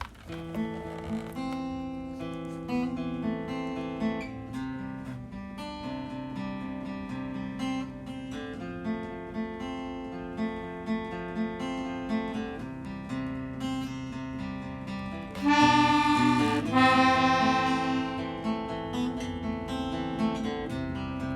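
Instrumental song intro on acoustic guitar, picked in a steady repeating pattern. About fifteen seconds in a harmonica comes in louder for a couple of held phrases over the guitar.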